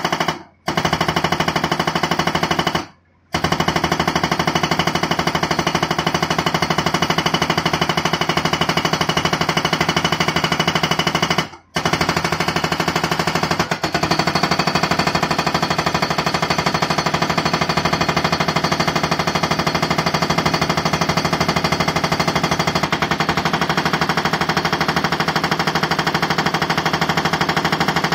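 Excavator-mounted hydraulic breaker hammering its chisel into rock in a rapid, steady run of blows. It stops briefly three times: just after the start, about three seconds in, and near the middle.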